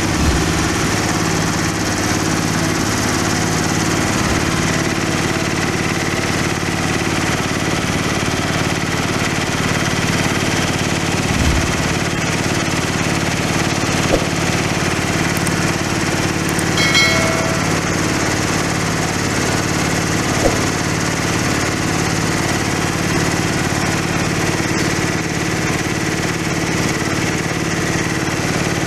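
Rice husk grinding (hammer) mill running steadily, its engine and rotor making an even, unchanging machine hum.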